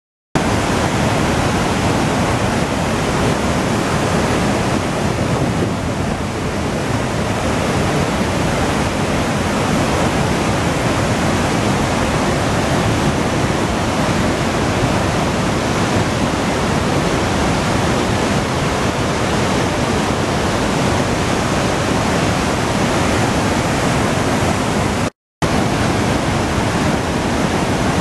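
Iguazu Falls: a loud, steady rush of heavily falling water, starting abruptly and cutting out for an instant near the end.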